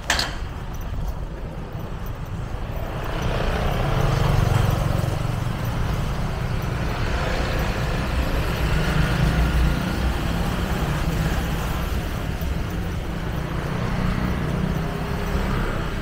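Street traffic noise: passing motor vehicles over a steady low rumble, growing louder about three seconds in and easing off near the end.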